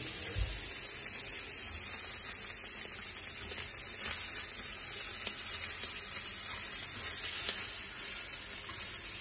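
Octopus tentacles, rubbed with olive oil, searing on a smoking-hot ridged griddle pan: a steady sizzling hiss with a few small spitting pops.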